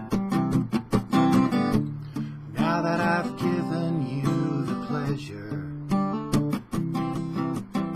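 Acoustic guitar strummed in chords, with a man's voice singing a line from about two and a half seconds in.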